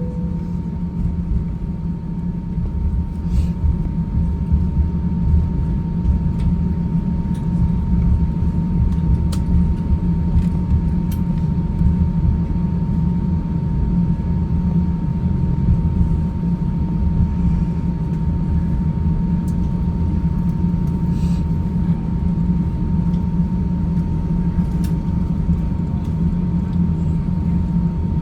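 Airbus A350-900 cabin noise: a steady low rumble with a constant high whine from its Rolls-Royce Trent XWB engines, and a few faint clicks.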